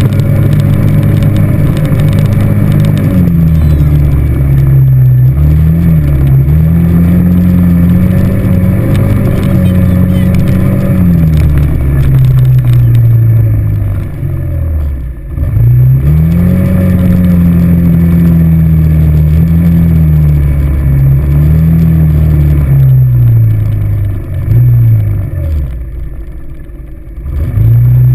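ATV engine heard from the handlebars, revving up and easing off several times as the throttle opens and closes. It sinks almost to idle about halfway through and again just before the end, then picks up again.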